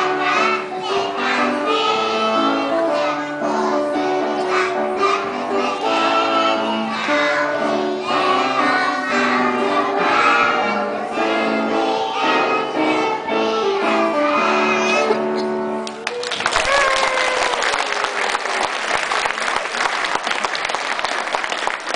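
A group of young children singing along to musical accompaniment; about two-thirds of the way through the song ends and the audience applauds.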